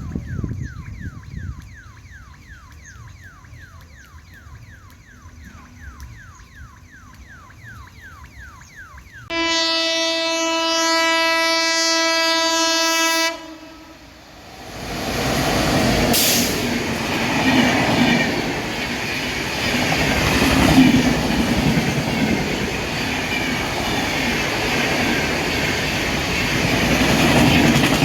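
A faint chirping repeats about three times a second. Then an Indian Railways WAP7 electric locomotive sounds its horn in one steady blast of about four seconds. From about fourteen seconds in, the train's approach and passing builds into a loud rumble of wheels on the rails.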